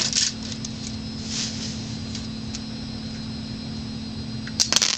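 Homemade coilgun fired by touching its bare wire lead to a 12-volt lead-acid battery terminal: a quick cluster of sharp clicks near the end as contact is made. A steady low hum runs underneath.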